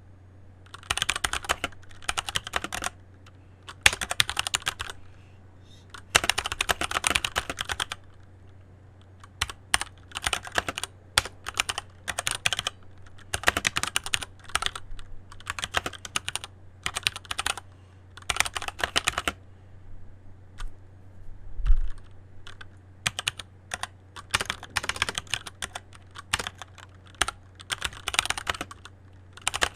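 Typing on a Keychron C1 mechanical keyboard: bursts of rapid key clicks lasting a second or two, with short pauses between, and one deeper thump about two-thirds of the way through.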